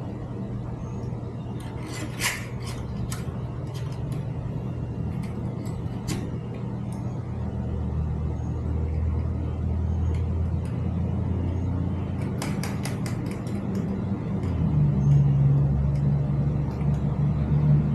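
A steady low mechanical hum, like an engine, that grows a little louder and changes pitch about halfway through and again near the end. Over it come a few light metallic clicks and clinks from working on the bike's parts, a quick cluster of them about two thirds of the way in.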